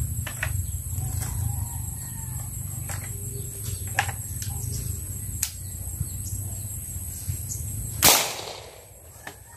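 A homemade alcohol-fuelled marble gun, built like a pump shotgun, fires once about eight seconds in: one sharp bang that rings off for about a second. Before the shot there is a steady low rumble and a few faint clicks.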